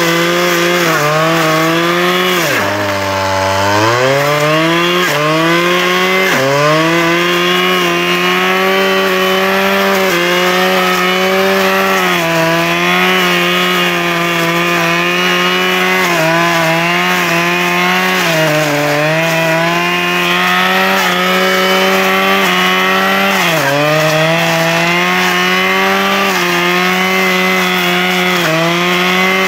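Small two-stroke engine of a handheld power tool running at high revs, its pitch dropping briefly and climbing back again several times, deepest about three seconds in.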